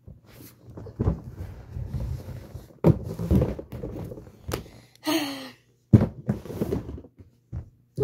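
Handling noise from a plastic bin being moved: a series of knocks and thumps, the loudest about three and six seconds in, with a plastic bag rustling in between.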